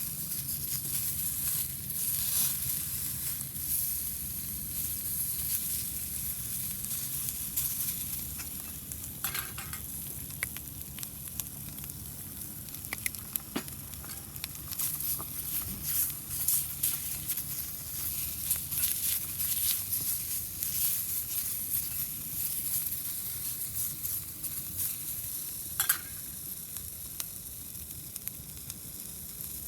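Food sizzling in a pan over a wood fire: a steady frying hiss with small pops and crackles, and a few sharper clicks now and then.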